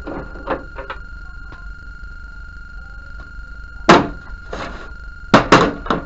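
Sharp knocks and clatter from handling the plastic cabinet of a CRT television: one loud knock about four seconds in and a quick run of three near the end, over a steady high-pitched tone.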